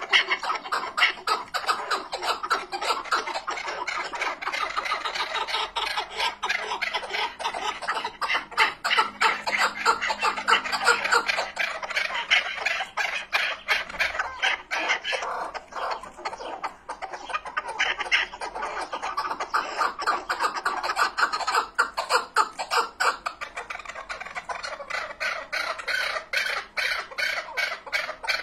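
Chukar partridge calling without a break, a long run of rapid, repeated short notes.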